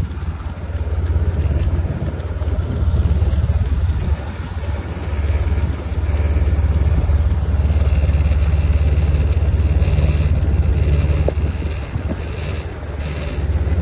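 Steady low rumble of a vehicle engine running at an even pace, with no clear revving.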